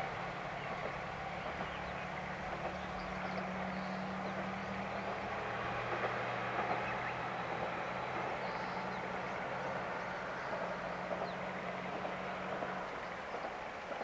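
Diesel railcar running on the JR Sankō Line, a steady low engine drone that ends about thirteen seconds in, over a steady hiss.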